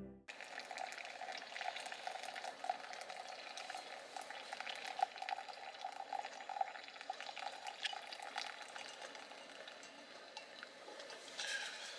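A pot of liquid simmering on a camp stove: steady bubbling with many small crackles and pops.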